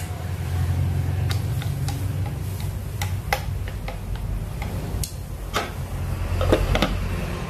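Wooden chopsticks stirring pork and snails in a clay pot, tapping and clicking against it, then a glass lid set onto the pot with a couple of clinks near the end, over a low steady hum.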